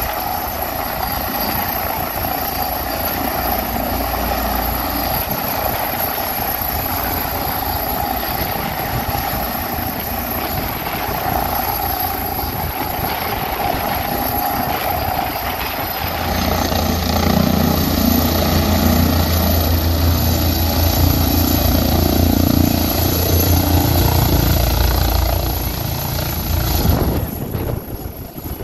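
Police helicopter hovering close by with a steady rotor and turbine noise. About two-thirds of the way through, a strong low rotor beat grows louder as the helicopter comes down to land. The sound drops suddenly near the end.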